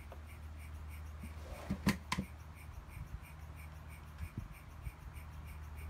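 A few sharp clicks and taps, clustered about two seconds in, with two softer ones later, from fingers working a fitting at the carburetor end of a two-stroke push mower. Under them is a steady low hum and a faint, quick, high pulsing.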